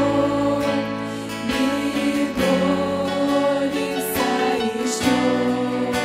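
A mixed worship choir singing a Russian worship song in unison with sustained notes, accompanied by keyboard and acoustic guitar.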